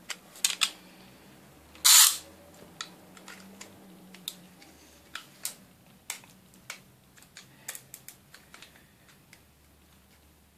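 Two cheap metal-and-plastic Beyblade spinning tops battling in a small plastic stadium: irregular sharp clicks and clacks as they hit each other and the stadium wall, with one louder, longer clatter about two seconds in. The clicks grow sparser near the end.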